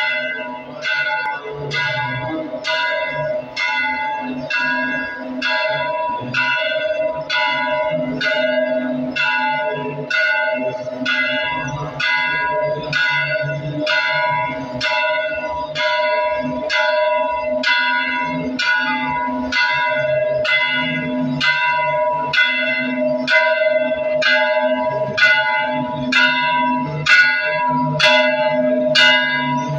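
Hindu temple bells ringing continuously, struck slightly more than once a second in an even, unbroken rhythm. Several bell tones keep ringing between the strikes.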